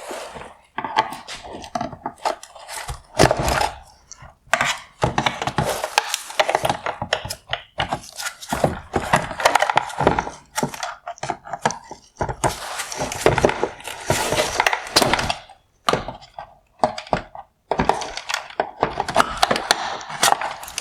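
Pliers prying and popping wire harness retainer clips out of a headlight housing: a long, irregular run of cracks, clicks and knocks with scraping in between.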